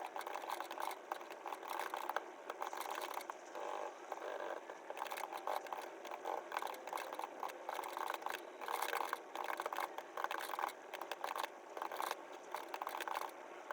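Typing on a smart keyboard: a rapid, uneven run of small key clicks and taps, in short flurries with brief pauses.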